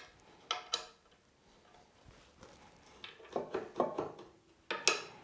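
Light metallic clicks and knocks, some with a short ring, as the disc sander's table is fitted and tightened by hand: two near the start, then a cluster of several toward the end.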